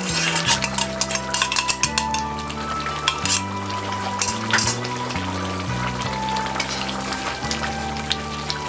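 Chicken curry bubbling and sizzling in a metal karahi, with crackling pops that are densest in the first few seconds; a spatula stirs it near the end. Background music with a low, slowly changing bass line plays throughout.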